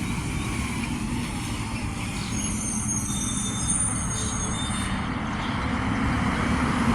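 Garbage truck engine running as the truck goes by, a steady low rumble. A thin high squeal comes in for about two seconds in the middle.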